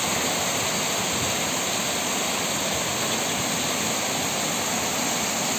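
Heavy thunderstorm downpour, rain coming down in sheets with a steady, unbroken rush.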